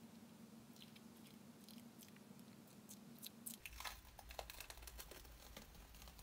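Faint sticky crackling of a dried eggplant peel-off face mask being pulled off the skin, a run of many small snaps from about three and a half seconds in, with a few scattered ticks before that.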